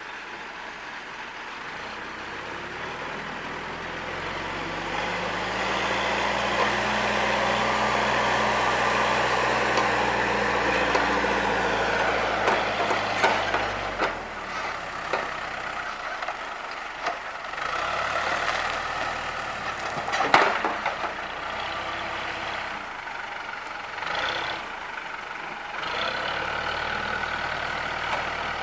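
A heavy-equipment diesel engine working, rising and getting louder for several seconds as it pulls harder. It is followed by scattered knocks and cracks of wood and brush being pushed and dropped, with one loud crash about two-thirds of the way through.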